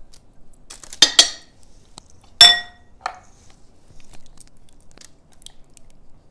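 A kitchen utensil knocking and clinking against a mixing bowl: two quick knocks about a second in, then a louder, ringing knock about halfway through, followed by a lighter one.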